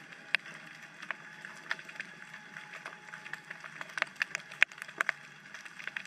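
Underwater ambience through a GoPro housing: irregular sharp clicks and snaps, scattered several times a second and loudest a little past the middle, over a faint steady hum.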